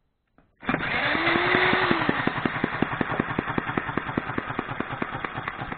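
Electric drill spinning a homemade single-cylinder six-stroke model engine to start it, starting about half a second in with a whine that rises and falls, over a regular knock of about eight beats a second from the engine's strokes. The engine runs poorly, which the builder puts down to its microswitch ignition and a mixture that needs adjusting.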